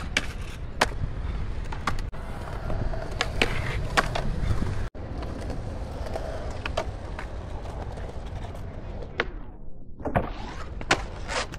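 Skateboards rolling on concrete with a steady rumble, broken by repeated sharp clacks of tails popping and boards landing. Near the end a board slides along a ledge.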